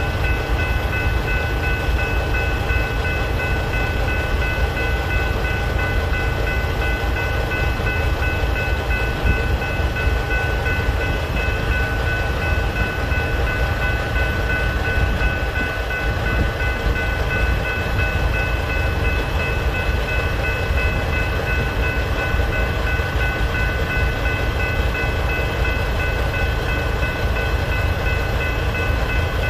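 General Signals type-3 electronic crossing bells ringing steadily at a grade crossing, over a constant low rumble from the freight train on the crossing.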